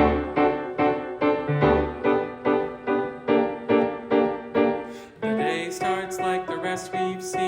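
Piano playing a steady, evenly pulsed pattern of repeated chords as an introduction. About five seconds in, a singing voice, the alto part, comes in over the piano.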